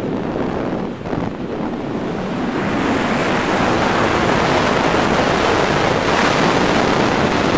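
Wind rushing over a camera microphone high in the air, a steady noise that grows louder about two and a half seconds in.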